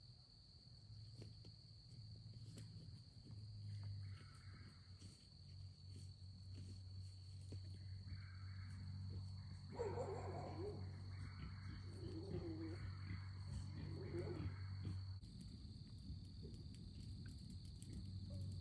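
Faint, steady high chirring of crickets and other insects over a low steady hum. From about ten seconds in, an animal gives a run of rough calls lasting about five seconds.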